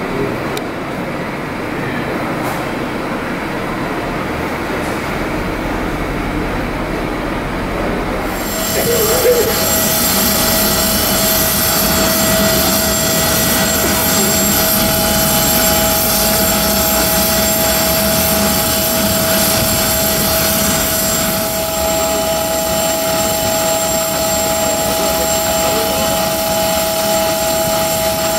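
Hum of a terminal hall with faint voices, then from about eight seconds in a parked Antonov An-158 regional jet on the apron: a steady loud rush with several fixed high turbine whines.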